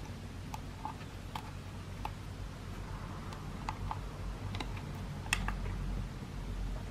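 About ten light plastic clicks and taps from handling a TC1 multi-function component tester: an inductor's leads going into its ZIF socket, the socket lever and the test button being worked. The sharpest click comes a little past the middle.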